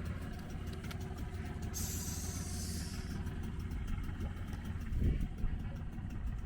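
Small outboard motor on a dinghy running steadily, with a burst of hiss a little after two seconds in and a low thump about five seconds in.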